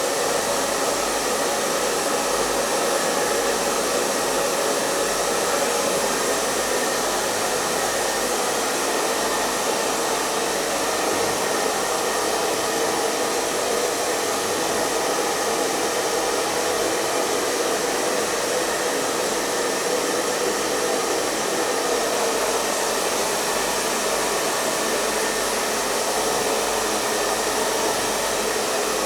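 Hair dryer running continuously at a steady speed, an even airflow hiss with a faint motor hum and no change in pitch or loudness.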